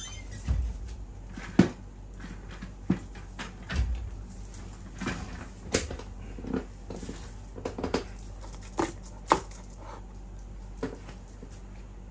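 A person moving about and sitting down in a desk chair: a couple of low thumps in the first few seconds, then scattered knocks and clicks of the chair and handling.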